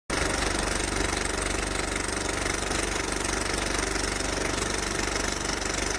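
Small engine running steadily at idle, with a rapid, even chugging beat and no change in speed.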